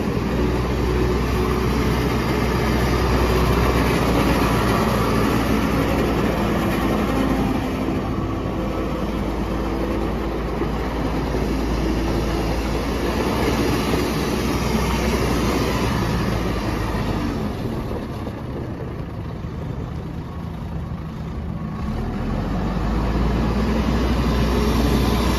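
Terex TX760B loader backhoe's 91 hp Perkins diesel engine running steadily. It eases off for a few seconds after the middle and builds again near the end.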